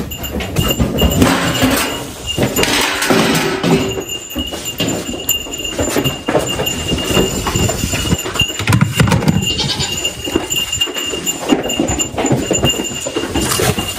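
Feed handling at a metal grain bin: knocks and rattles of a plastic scoop and grain against the can, mixed with footsteps on straw bedding.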